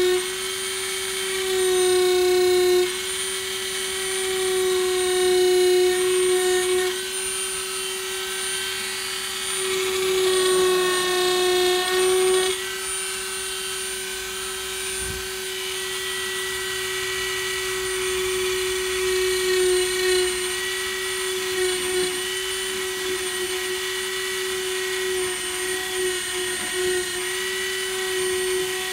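Dremel rotary tool with an engraving bit running at a steady high whine, engraving letters into weathered wood; its loudness swells and eases in spells as the bit cuts.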